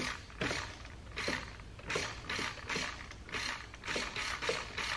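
Steering servo on a Redcat Everest Gen 7 RC crawler whirring through its gears in short bursts, about two a second, as the steering is swung left and right. It runs smoothly, the sign of a servo that is working fine.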